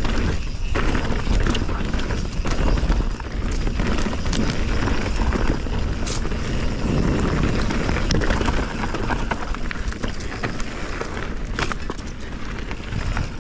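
Canyon Spectral 29 full-suspension mountain bike riding fast down a dry dirt singletrack: steady tyre roar and drivetrain and frame rattle, with frequent sharp knocks as the wheels hit roots and stones. Wind buffets the chest-mounted microphone, adding a constant low rumble.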